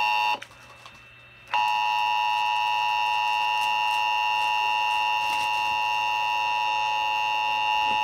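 Emergency Alert System attention signal, the steady two-tone (853 and 960 Hz) alert tone that opens a required monthly EAS test. It breaks off about half a second in, resumes about a second and a half in, and then holds steady.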